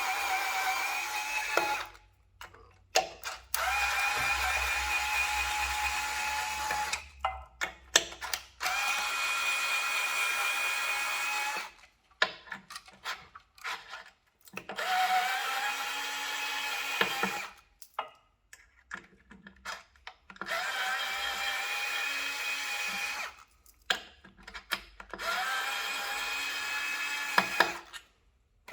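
Cordless power drill/driver running in repeated short bursts, a steady whine each time, about six runs of two to three seconds, as it backs out the small hex screws; light clicks in the gaps between runs.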